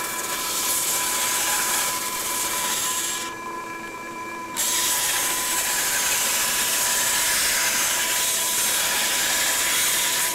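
Bandsaw resawing a thick hardwood board: the steady hum and whine of the running saw under the hiss of the blade cutting through the wood. The cutting hiss drops away for about a second and a half a little after three seconds in, then returns.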